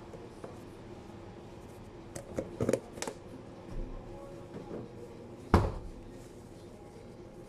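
Kitchen handling sounds at a sushi counter: a few quick clicks and clatters about two to three seconds in, then one loud sharp knock about five and a half seconds in. A steady low kitchen hum runs underneath.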